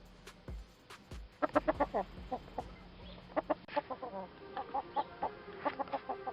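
Desi chicken clucking: runs of short, quick clucks in clusters, beginning about a second and a half in.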